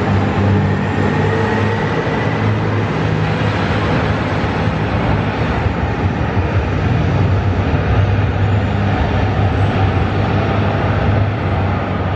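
JR Shikoku 2700 series diesel multiple unit pulling out and moving away down the line: a steady low diesel engine drone over wheel and rail noise, easing off slightly near the end.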